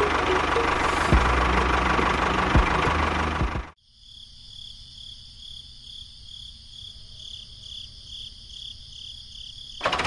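A small engine running steadily, with two sharp clicks, then cut off abruptly about a third of the way in. After the cut come insects chirping in a fast, even, pulsing rhythm, until the engine noise returns right at the end.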